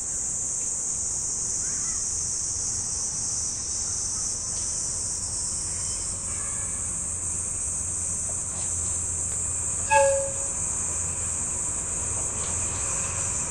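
Diesel shunting locomotive approaching slowly with a low engine rumble, sounding one short horn toot about ten seconds in. Under it all runs a steady high buzzing of insects.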